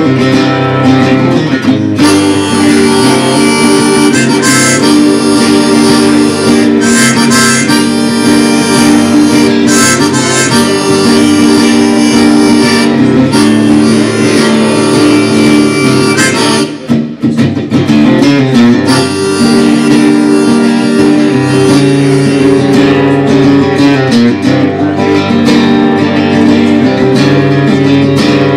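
Live instrumental break on harmonica and guitar: sustained, wailing harmonica notes over a strummed guitar, with a brief dip about 17 seconds in.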